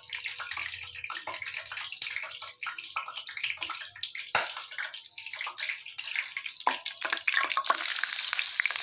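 A bread sandwich being dipped and pressed by hand in a wet batter in a bowl, with irregular squelching and splashing. Near the end it goes into hot oil and a steady sizzle of frying begins.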